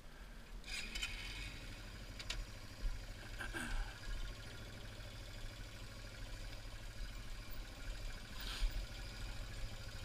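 Yamaha TW200's single-cylinder four-stroke engine running low and steady at slow speed, with a few sharp rattles and clicks from the bike over the rock.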